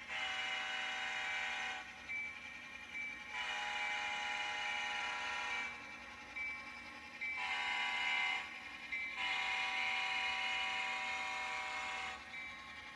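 Sound-equipped HO scale model diesel locomotive blowing its multi-chime air horn through its small on-board speaker: four blasts, long, long, short, long, the grade-crossing signal.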